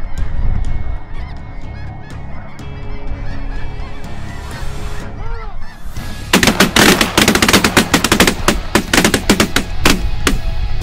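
Soft background music with a few scattered goose calls, then about six seconds in a loud, dense clamor of a large flock of snow geese calling at once, many overlapping honks and yelps.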